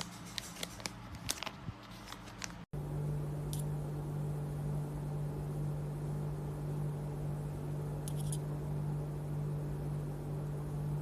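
Several small clicks and taps of handling for a couple of seconds. Then, after an abrupt cut, a steady low electrical hum with hiss runs on, with a few faint clicks.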